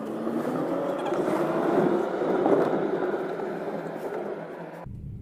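Street traffic and road noise heard from a moving car, swelling to its loudest about two seconds in as vehicles pass close by. Near the end the sound cuts abruptly to the quieter, low hum of the car's cabin.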